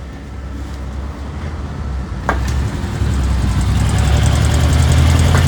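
Honda Pop 110's small single-cylinder four-stroke engine running, growing louder after about three seconds, with a knock in it from the cam chain (timing chain) rattling. A single sharp click a little over two seconds in.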